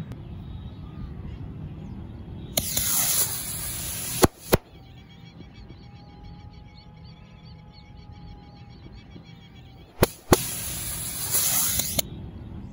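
Two Diwali sky rockets tied together launching with a loud hiss and a high whistle for about a second and a half, ending in two sharp bangs a quarter-second apart as they burst. About ten seconds in come two more sharp bangs, followed by another hissing whistle.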